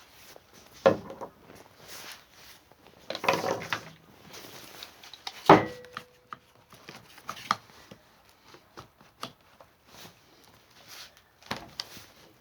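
Handling noises: scattered knocks, clatter and rubbing of objects moved about on a hard surface. One sharp knock about five and a half seconds in is the loudest and rings briefly.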